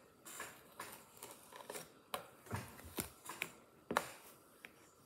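Irregular light clicks and taps of small hard objects being handled on a countertop, the sharpest about two, three and four seconds in.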